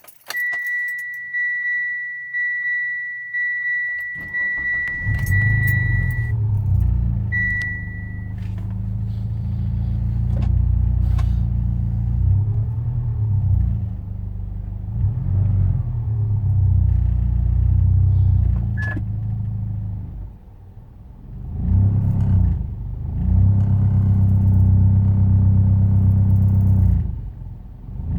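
A car's warning chime beeps steadily for the first few seconds. Then the Proton Inspira's engine starts from cold at about four seconds in and runs unevenly, dropping in level twice near the end. The owner says it knocks and misfires when cold and is fine once warm.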